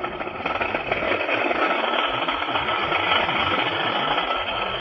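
A small motor-driven machine running steadily with a rapid, even buzz.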